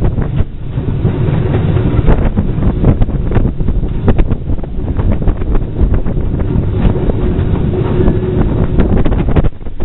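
A moving steam-hauled freight train heard from its brake van, with LSWR Beattie 2-4-0 well tank locomotive 30587 working close by: a steady rumble with many irregular knocks of wheels on the track. Heavy wind noise on the microphone throughout.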